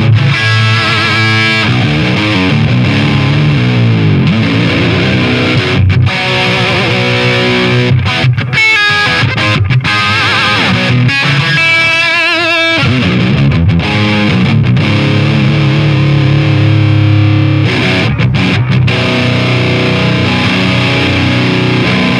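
Distorted electric guitar riffs played through a Marshall DSL50 valve head into a 1985 Marshall 1960 4x12 cabinet, recorded close on its original Celestion G12T-75 speaker. The playing runs on with a few brief breaks between phrases.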